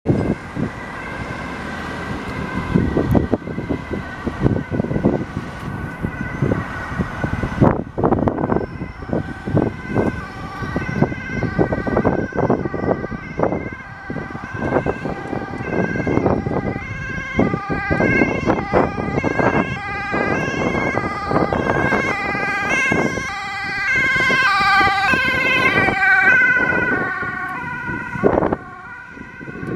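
Two-tone sirens of a police car and ambulances on an urgent run, several alternating hi-lo sirens sounding at once as the vehicles approach and pass. The siren pitch bends as an ambulance passes close, a few seconds before the end.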